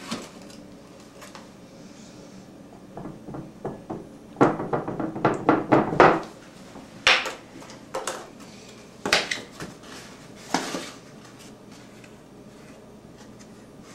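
Measuring spoon knocking against a mixing bowl as flour is scooped from the bag and tipped in: a quick run of taps about four seconds in, then single knocks every second or so.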